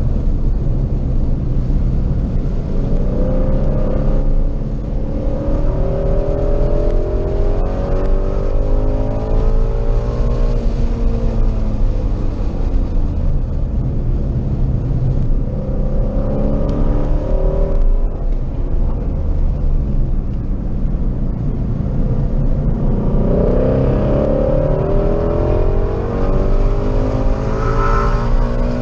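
A car's engine heard from inside the cabin at track speed: a steady low drone whose note climbs again and again as the car accelerates, with the strongest climb near the end.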